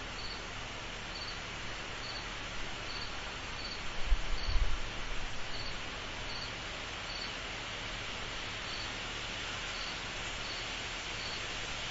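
Steady drone of a night insect chorus, with one cricket giving short, high chirps about once every three-quarters of a second. A brief low rumble about four seconds in.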